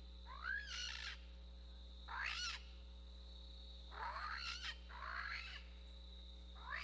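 Raccoon distress blown on an MFK mouth-blown predator call: five short squalls, each a quick rising squeal, spaced about one to two seconds apart.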